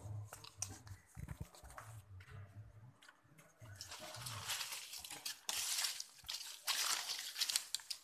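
Leafy branches rustling, in irregular crackling bursts that grow louder about three and a half seconds in.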